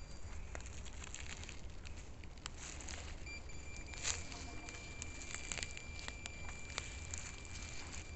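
Footsteps on the forest floor, with irregular crackles and snaps of leaves and twigs underfoot and one sharper snap about halfway through. A thin, steady high tone comes in a little before the middle and holds.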